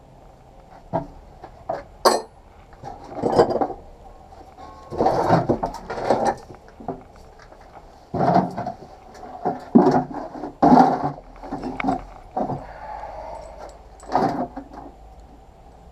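Metal tools and pieces clinking and clattering as they are picked up and set down, in irregular knocks and short rattling bursts.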